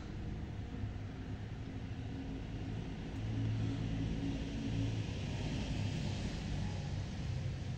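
Steady low motor hum over outdoor background noise, growing louder about three seconds in.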